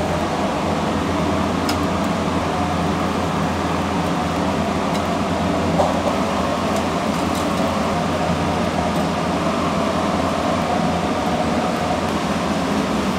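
Steady droning hum of a ventilation fan, with a few faint ticks over it.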